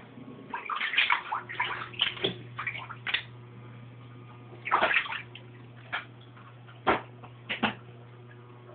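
Shallow floodwater splashing and sloshing on a floor in irregular bursts, thickest in the first three seconds and then a few single splashes, over a low steady hum.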